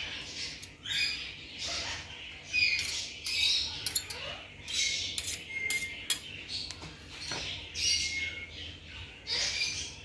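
Steel knife and slotted spatula scraping and tapping against each other and a wooden cutting board while a fried shami kabab patty is chopped up and spread onto a bun: repeated short scrapes with sharp clicks and brief squeaky tones.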